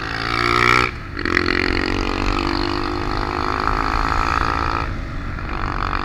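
Motorcycle engine revving up as it accelerates to overtake a truck: its pitch climbs for about a second, drops off briefly, then holds steady under load, with a low rumble of wind and road noise beneath.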